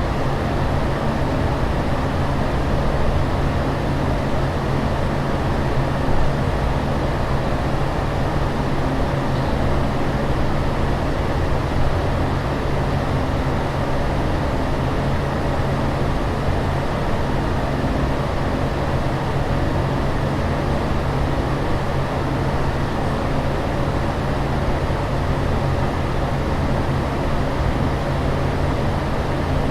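Steady aircraft cabin noise in flight: an even rush of engine and air-flow noise with a low, constant drone underneath.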